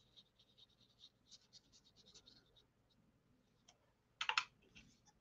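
Faint scratching of a fine watercolour brush on paper as a wash is laid on, then a brief cluster of sharp clicks about four seconds in.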